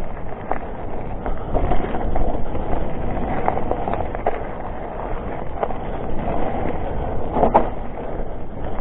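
Mountain bike riding down a rough forest trail: a steady rumble of tyres and wind on the microphone, with scattered knocks and rattles from the bike over the ground.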